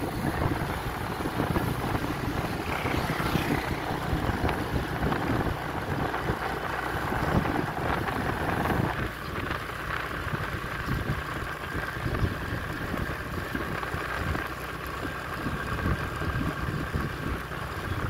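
Engine and road noise of a slowly moving vehicle, heard from on board, with wind rumbling on the microphone.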